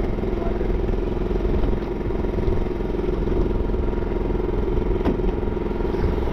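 Boat engine running steadily, with a faint click or two.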